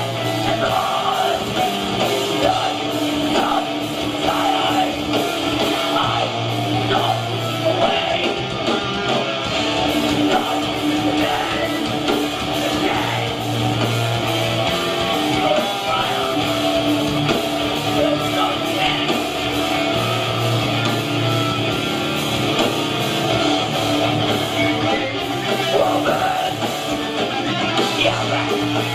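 Live metalcore band playing loud and continuous, with distorted electric guitars, bass guitar, drums and vocals, picked up by a camcorder microphone.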